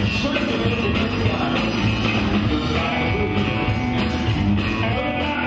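Live blues band playing: electric guitars, electric bass and drum kit, with a steady beat.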